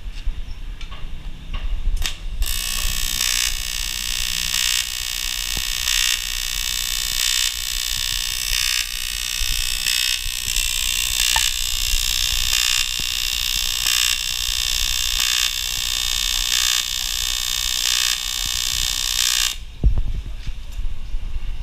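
AC TIG welding arc on aluminium, a harsh steady buzz that strikes a couple of seconds in, swells regularly about every second and a half, and cuts off abruptly a couple of seconds before the end. A low hum runs underneath.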